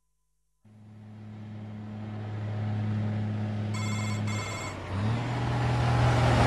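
Heavy diesel truck engine droning and growing steadily louder as it approaches, its pitch shifting about five seconds in. Around four seconds in, two short, high electronic beeps sound over it.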